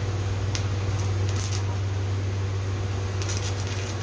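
Stick (arc) welding on an empty steel freon cylinder: the electrode arc crackles and sputters in short spurts as it is struck, briefly about half a second in, then for a moment around a second and a half, and longer near the end. Under it runs a steady low hum from the welding machine.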